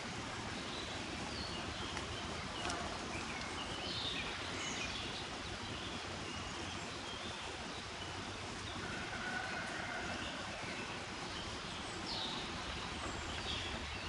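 Windy countryside ambience: a steady rush of wind with scattered short bird chirps.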